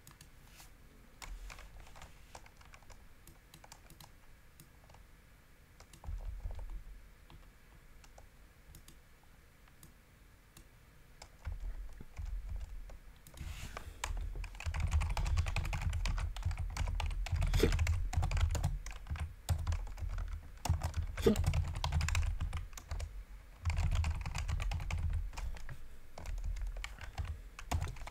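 Typing on a computer keyboard: scattered, faint keystrokes at first, then bursts of fast, louder typing from about halfway through.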